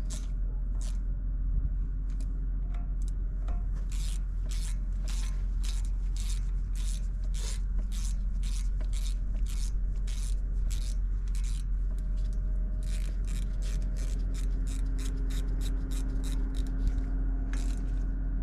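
Hand ratchet tightening small Torx T27 bolts on a wheel hub assembly: a long run of short, even ratchet clicks, about two to three a second, over a steady low hum.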